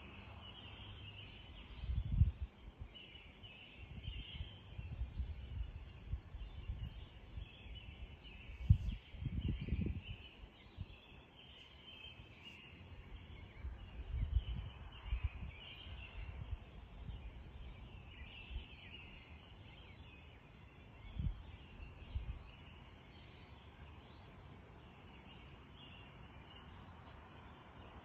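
Dawn chorus of songbirds singing continuously, many overlapping high chirps and calls. Intermittent low rumbles on the phone's microphone come and go, loudest about two seconds in and again around nine to ten seconds.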